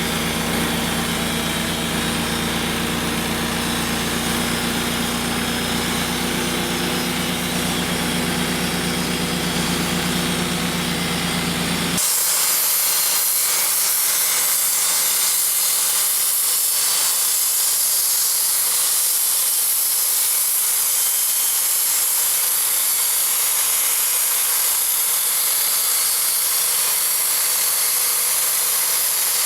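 Wood-Mizer band sawmill running: for about twelve seconds a steady engine sound, then an abrupt change to a steady, bright hissing as the band blade saws through a black walnut log.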